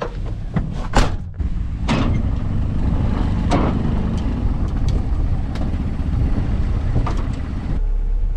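Vehicle engine running steadily, with a few sharp knocks at about one, two and three and a half seconds in.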